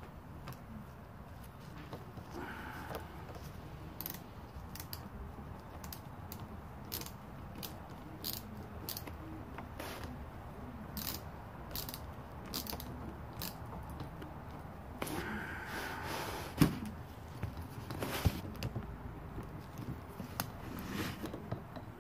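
Light metal clicks, about one or two a second, from a hand tool working a mounting bolt on a Weber 34 ICT carburetor being fitted to its intake manifold. There is a brief scraping rustle and a single sharper knock past the middle.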